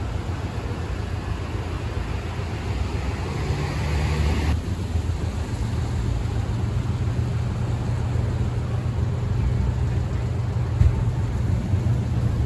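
City street traffic: a steady low rumble of vehicles, with a louder rushing noise that cuts off suddenly about four and a half seconds in, then a steady low engine hum.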